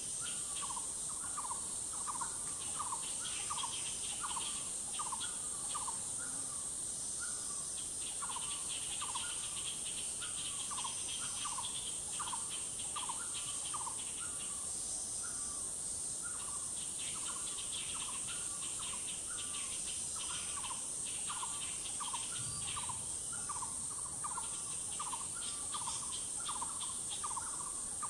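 Tropical forest chorus: insects hold a steady high-pitched drone, with bouts of a faster pulsing trill coming and going, while a bird repeats a short call note about twice a second.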